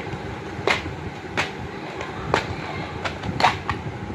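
About six sharp clicks and taps as wrapped chocolates and a plastic tub are handled over a cut-glass tray, over a steady low background rumble.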